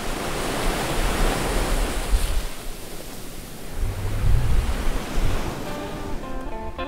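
Small waves breaking and washing up a sandy beach, swelling and fading, with low wind rumble on the microphone. Plucked acoustic guitar notes begin near the end.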